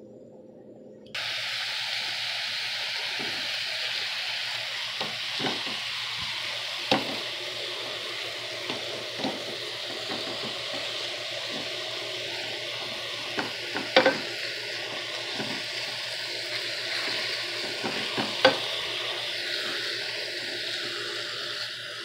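Ground beef sizzling as it browns in a frying pan. The sizzle starts abruptly about a second in, and a utensil knocks and scrapes against the pan now and then, with a few sharper clacks.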